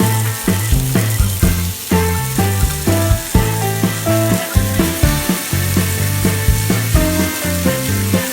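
Fish steak sizzling in hot oil, a steady hiss, under background music with a steady beat and bass line.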